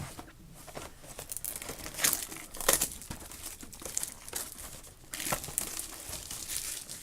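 Packaging of a trading card box crinkling and tearing as it is opened, in irregular crackly handfuls with louder rips about two seconds in, near three seconds, and again from about five seconds on.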